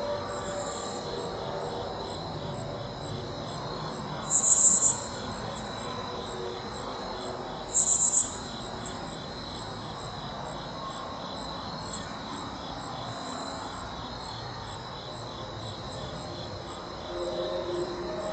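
Night insect chorus of crickets: a steady high trilling, with two short, louder high buzzes about four and eight seconds in. A low drone comes in near the end.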